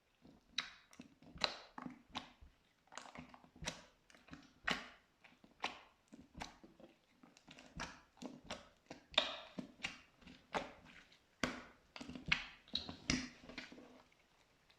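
Slime being pressed and squeezed by hand: an irregular run of short, wet clicks and pops, a few each second, that stops shortly before the end.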